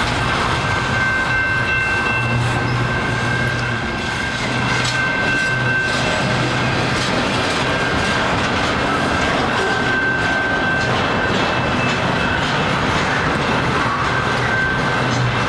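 Cars of a Canadian Pacific freight train rolling steadily past, wheels clattering on the rails, with a thin high ringing tone that comes and goes.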